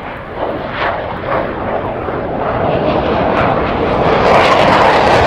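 Aircraft sound effect: an airplane's engine noise growing steadily louder as it approaches.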